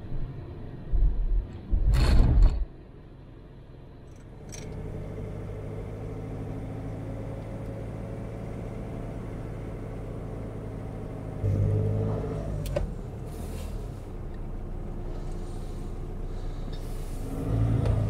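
Car driving along a road: a steady engine hum with road noise, a couple of loud jolts about one and two seconds in, and the engine briefly louder around the middle.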